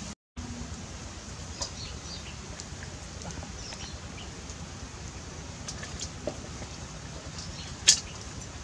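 Outdoor background with a steady low rumble, scattered small clicks and knocks from handling meat and metal bowls by the stream, and one sharp clink near the end.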